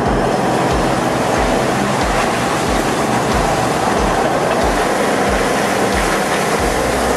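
Heavy machinery running loud and steady, with a regular low thump about twice a second.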